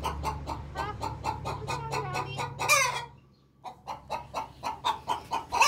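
Hen clucking in a quick run of short notes, several a second, with a longer drawn-out squawk near the three-second mark. The clucking stops for about half a second, then starts again and ends on another long call.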